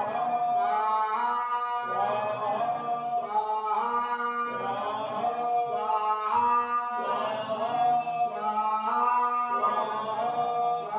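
A man chanting a Hindu devotional mantra in a sung melody: the same held-note phrase repeats about every two and a half seconds.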